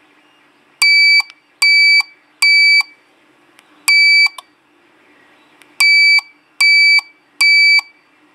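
Buzzer of a universal car keyless-entry and alarm kit beeping in answer to presses of its remote key fob: three beeps, a single beep about four seconds in, then three more. Each beep is a steady high tone of under half a second, followed by a short tick.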